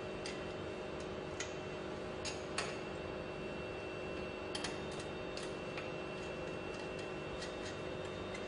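Scattered sharp clicks and taps, irregular and sometimes in quick pairs, from hand tools working on a progressing cavity pump's tie rods as they are loosened, over a steady workshop hum with a few constant tones.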